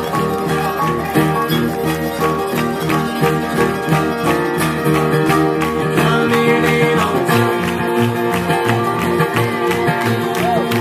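Bluegrass band playing live: fiddles, banjo, acoustic guitar and upright double bass together, with a steady driving rhythm.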